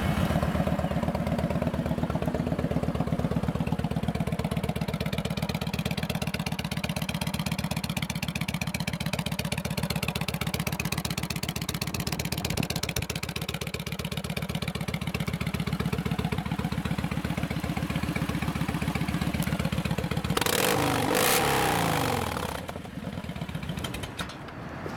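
A 2009 Kawasaki Vulcan 1700 Classic LT's fuel-injected, liquid-cooled 1700 cc V-twin idles steadily through aftermarket exhaust pipes. A few seconds before the end the throttle is blipped once in a quick rev.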